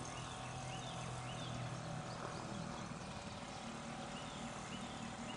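Faint outdoor ambience: a scatter of short high chirps over a steady low hum, with no clear handling noise.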